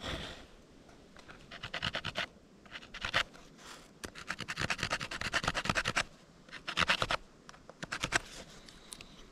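Stone flake scraping at a dry grass tree flower stalk being shaped into a fire-making hand drill: several bursts of quick, rasping strokes with short pauses between, the longest run about halfway through.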